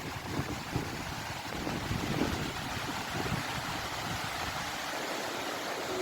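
Rushing water of a river in flood, a steady noise, with gusts of wind rumbling on the microphone.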